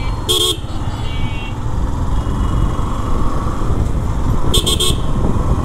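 Steady engine, road and wind rumble of a motorcycle riding through city traffic, with a short horn toot just after the start and a quick burst of toots about four and a half seconds in.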